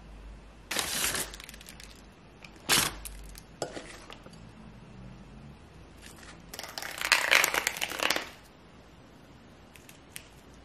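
Rustling and crinkling handling noises in several short bursts, with a sharp click about three seconds in and the longest, loudest stretch of crinkling a little past the middle.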